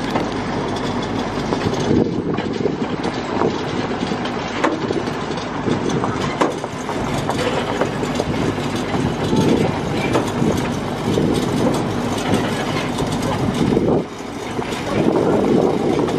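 Tractor driving along a gravel track: its engine runs steadily under a constant rattle and clatter of the ride.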